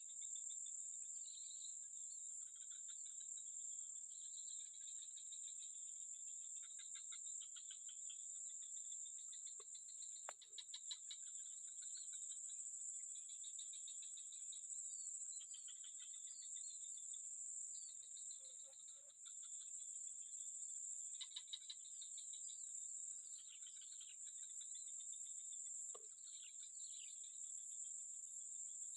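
Outdoor insect chorus: a steady, high-pitched drone, likely crickets or cicadas, runs without pause. Underneath it are repeated chirps, short trills and brief falling calls. There are two faint clicks, about ten seconds in and near twenty-six seconds.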